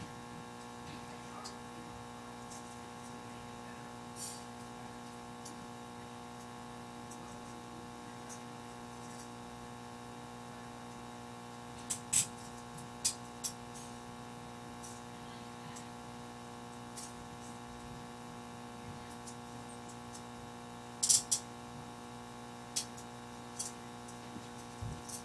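Steady electrical hum with several tones stacked together, broken by a few short sharp clicks, two close together about halfway through and a louder pair near the end.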